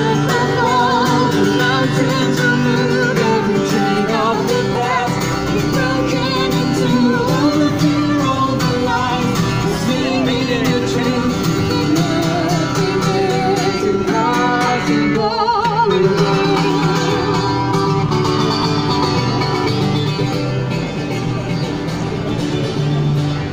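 Live acoustic guitar strummed under a man's and a woman's singing voices, amplified through microphones and PA speakers.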